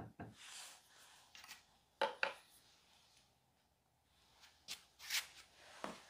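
A modelling tool makes a last couple of taps on the clay head, then hand-work noises follow: light rustling and a few scattered sharp clicks, the loudest a pair about two seconds in.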